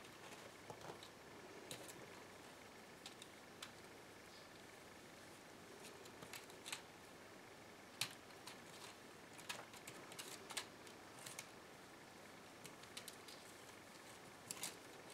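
Mostly quiet room with scattered faint clicks and scratches, the sharpest about eight seconds in: kittens' paws and claws scuffing a wicker basket and wooden floorboards as they tussle.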